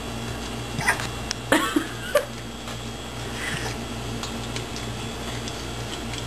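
Shiloh Shepherd puppy hiccuping while chewing a pig's ear: a few short, sudden hics about one to two seconds in, one with a small squeaky note, then fainter ones later, over a steady low hum.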